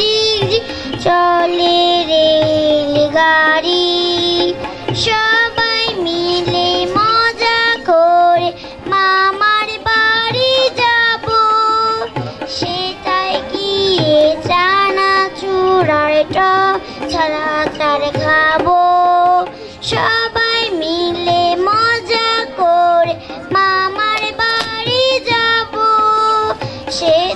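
A young girl singing a melody into a microphone, accompanied by harmonium and tabla.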